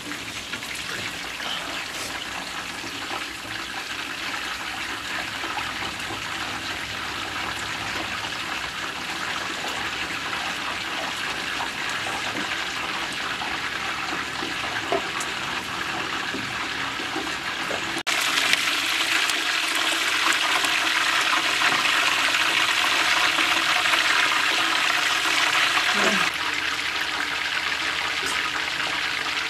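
Fish frying in a large wok-style pan of hot oil: a steady sizzle, which grows louder about two-thirds of the way through and eases off again near the end.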